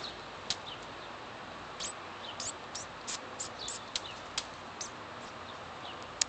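Small birds chirping: about a dozen short, high chirps, some sliding down in pitch, scattered through the seconds over a steady background hiss.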